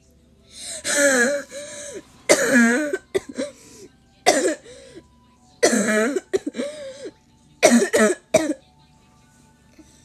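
A person laughing hard and coughing in about five breathy fits with short gaps between them, the last ones broken into sharp coughs.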